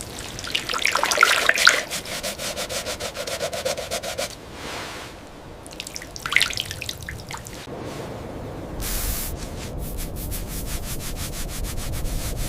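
Scraping and rubbing on a hard object in quick repeated strokes, mixed with water dripping and trickling.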